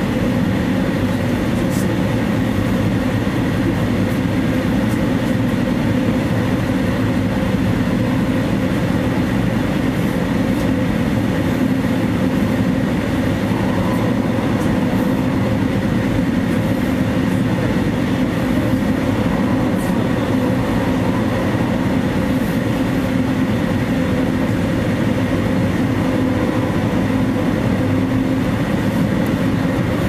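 Amtrak passenger train running at speed, heard from inside a passenger car: a steady rumble of wheels on rail with an even mechanical hum, and a few faint clicks.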